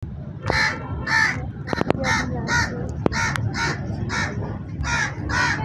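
Crows cawing: a run of about nine harsh caws, roughly two a second, with a few sharp clicks between them over a low steady background rumble.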